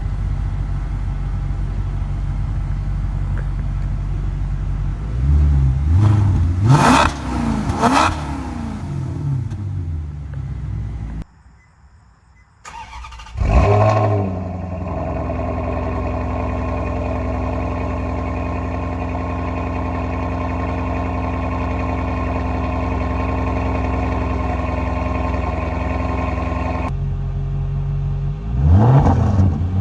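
Maserati Quattroporte S 4.7-litre V8 exhaust: idling, then blipped twice to high revs about seven seconds in. After a brief silence the engine cold-starts with a loud flare and settles into a steady fast idle. Near the end it is revved sharply again.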